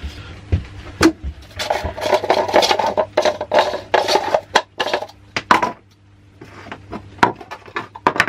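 Plastic waste-pipe couplings being handled on a workbench: a string of sharp knocks and clicks as the fittings are set down and tapped. In the middle come a few seconds of busy scraping and rattling as the rubber seals are worked out of the couplings.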